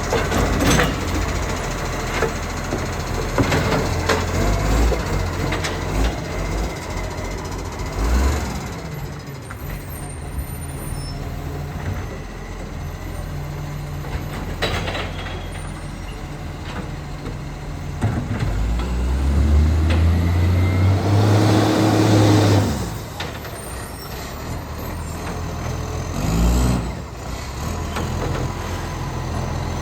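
Acco garbage truck's diesel engine running, with an exhaust leak. The engine revs up and runs louder for a few seconds about two-thirds of the way in, then drops back. Several short, sharp air hisses are heard, typical of air-brake releases.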